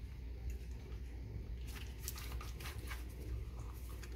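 Faint handling noise from a lithium-ion battery pack's plastic casing being fitted back together by hand: light scattered clicks and rubbing over a steady low hum.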